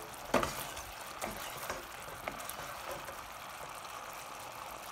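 Flour-thickened white wine sauce simmering in a skillet with a steady sizzle and bubbling, with a few light clicks of a stirring spoon against the pan in the first couple of seconds.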